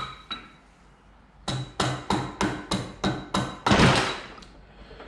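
Hammer blows on a metal part, driving the motorcycle swing-arm's pivot into the frame, a tight fit because of the thick powder coating: two knocks, a short pause, then a run of about eight taps roughly three a second, ending in a heavier, longer blow.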